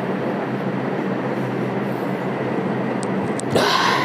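Steady mechanical room hum with a low drone running throughout. About three and a half seconds in comes a short, louder rush of noise.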